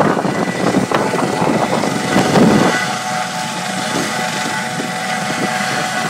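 Police helicopter running on the ground with its rotor turning: a loud rushing noise that eases about two and a half seconds in to a steadier hum, with a thin turbine whine and an even rotor pulse.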